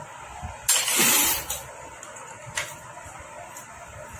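Socket wrench worked on a Honda Activa scooter engine's cylinder head bolts: a harsh rasping burst lasting under a second about a second in, then a few sharp metal clicks.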